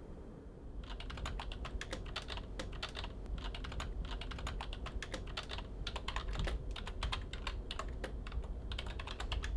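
Typing on a computer keyboard: rapid runs of keystroke clicks with short pauses between them, starting about a second in.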